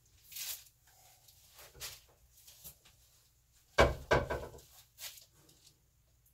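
Handling noises at a painting table: a loud knock about four seconds in, followed at once by a second, shorter clatter, with a few soft rustles before and after.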